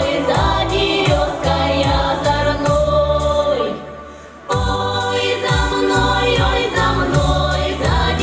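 Group singing over music with a steady beat; the music fades briefly about halfway through, then comes back in at full level.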